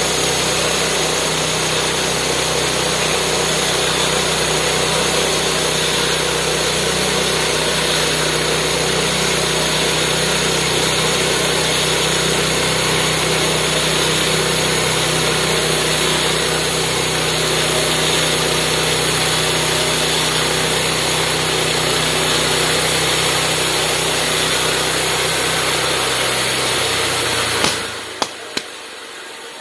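Homemade bandsaw sawmill running steadily, its small engine driving the band blade as the mill head saws along a log. Near the end the sound drops away suddenly, with a few sharp clicks.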